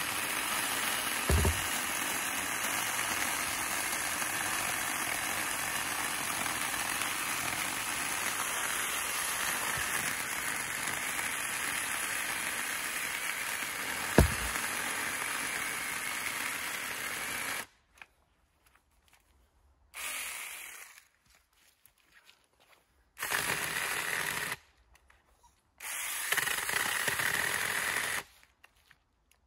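Small battery-powered chainsaw cutting through a log, its motor and chain running steadily, with two sharp knocks. After about eighteen seconds it cuts out, then runs in three short bursts with silence between them, as the battery runs flat and the saw can no longer get through the wood.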